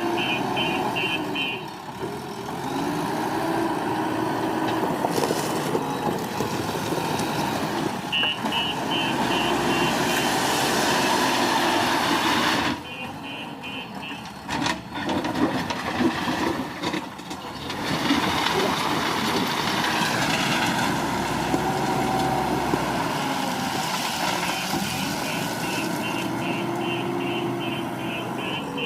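JCB 3DX Super backhoe loader's diesel engine working, its pitch rising and falling as it revs under load. Its reverse alarm beeps rapidly in four short spells.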